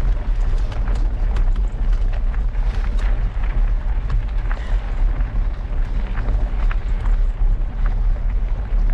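Wind rumbling heavily on the microphone of a mountain bike riding a gravel track, with the knobby tyres crunching over loose stones in scattered clicks.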